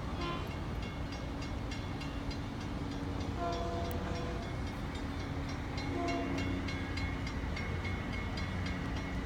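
Long Island Rail Road M7 electric train rolling along the track on a curve, with a steady rumble and regular clicks of the wheels. Its wheels squeal on the curve in short high tones several times, with a longer thin squeal from about halfway through.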